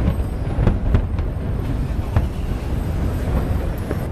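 Aerial fireworks shells bursting, several sharp bangs over a continuous low rumble of the display.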